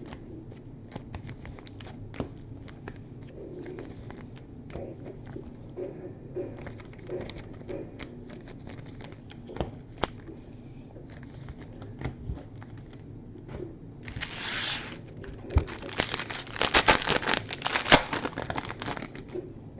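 Hands handling cardboard and plastic with small clicks and rustles, then the wrapper of a sealed trading-card pack being torn open and crinkled, loudest near the end.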